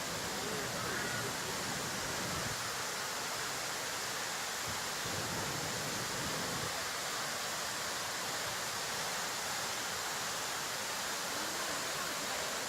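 Steady rushing of water from a waterfall, an even roar with no breaks.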